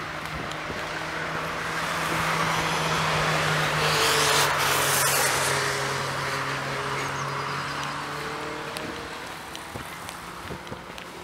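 A car passing by, growing louder over about four seconds and fading away after; its engine note drops in pitch as it goes past.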